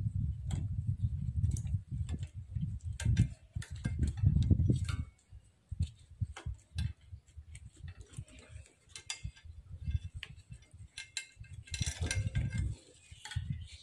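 Scattered small clicks and rustles of wires and plastic connectors being handled and pushed together by rubber-gloved hands, with a quick run of clicks near the end. Low rumbling bumps sit under the first five seconds or so.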